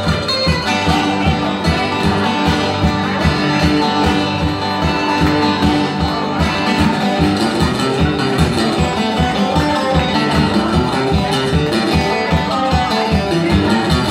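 Metal-bodied resonator guitar played in a fast blues picking style, over a steady stomped beat.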